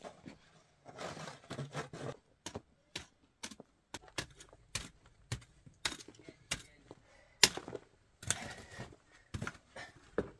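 Irregular knocks and clicks, one sharp knock standing out about two-thirds of the way through, with two short stretches of rustling.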